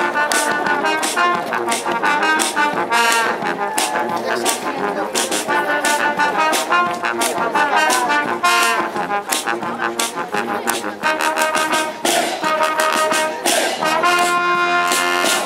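Uniformed military brass band playing: a brass melody of trumpets, trombones and tubas over a steady drum beat.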